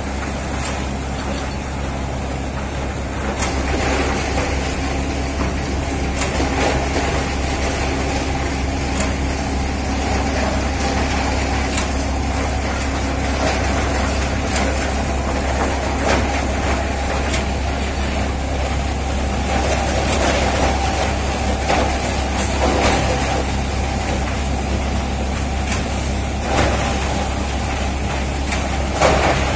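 Coir defibering machine running with husks being fed in: a steady low motor drone overlaid with irregular knocks and rattles from the husks being beaten apart.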